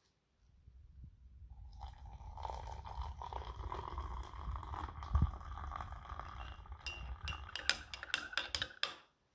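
Water running with glassware and dishes clinking, ending in a quick run of sharp clinks near the end.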